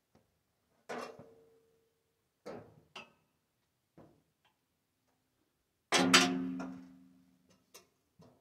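Scattered knocks and clunks of things being handled. The loudest, about six seconds in, is a metallic clank that rings on for a second or so, followed by a couple of light ticks.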